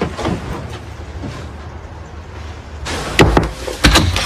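Water splashing for the first few seconds, then a few sharp, loud knocks at a door about three and four seconds in.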